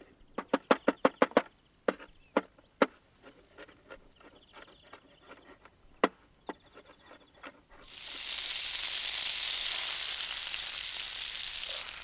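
A quick run of about eight sharp knocks, then scattered clicks. About eight seconds in, butter starts sizzling loudly in a hot pan and keeps frying steadily.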